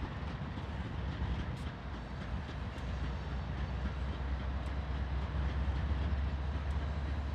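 Diesel-electric freight locomotives running as the train starts to pull away, a steady low rumble that grows stronger about four seconds in.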